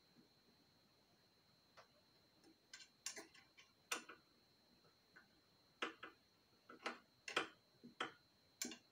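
Sharp, irregular clicks and taps of hand tools and metal parts being handled while reassembling an Air Venturi 4500 compressor, starting after a few quiet seconds.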